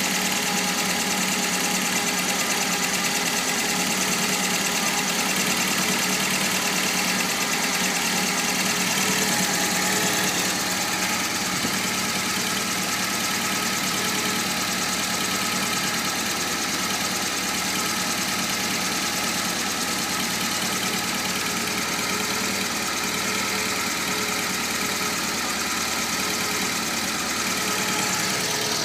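Volkswagen Golf GTI engine idling steadily, which the owner suspects may be misfiring.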